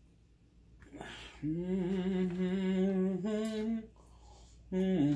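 A man humming a long closed-mouth 'mmm', held on one low pitch for about two and a half seconds and stepping up slightly at its end, then a second hum starting near the end. A short breathy sound comes just before the first hum.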